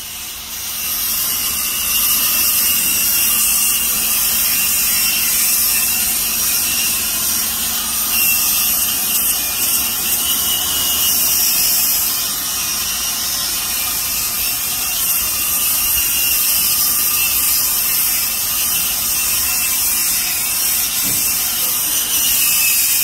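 Handheld angle grinder running and grinding against the metal end of a Yaskawa SGMG-44A2A AC servo motor: a steady, high-pitched grinding that builds up over about the first second and then holds at an even level.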